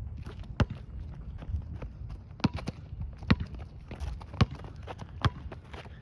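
A basketball bouncing on a hard court: five or six sharp bounces at uneven spacing.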